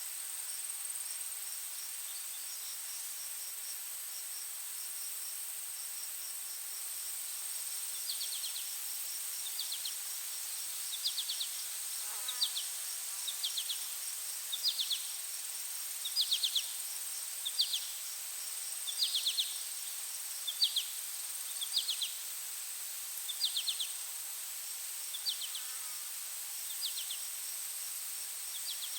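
Forest insect chorus: a steady high-pitched insect drone with a fast, even pulsing chirp underneath. From about eight seconds in, a short trilled call joins, repeating about once a second.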